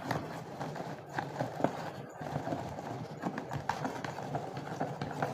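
Hand-operated kitchen chopper grinding green chillies, ginger and garlic into a paste, a busy run of irregular clicks and knocks.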